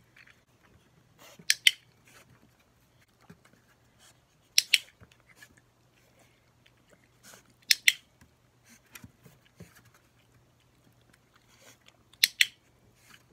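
Dog-training clicker clicked four times, each a sharp double click, marking the puppy's paw lifts in shake training. Faint licking and nibbling at the treat hand between the clicks.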